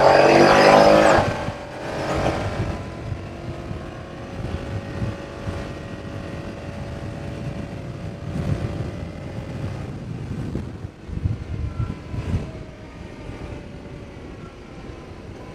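Honda Pioneer 700-4 side-by-side accelerating on a full-throttle speed run, its engine revving up loudly with a rising note. About a second in the note drops sharply as the automatic transmission shifts up, and the engine then runs on at a steady, quieter drone with intermittent low rumbles.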